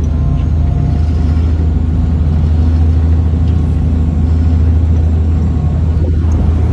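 A ferry's engines running under way with a steady low drone.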